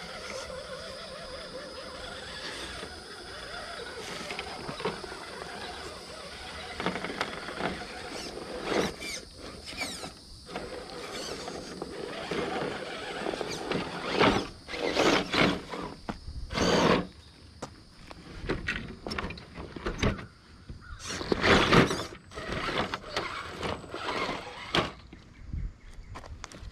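Electric motor and gears of an Element RC Enduro Trailwalker, a small radio-controlled scale crawler truck, whining in short bursts as the throttle comes on and off while it climbs over rocks. Dry leaf litter crunches loudly now and then, the loudest bursts about halfway through and again about two-thirds of the way in.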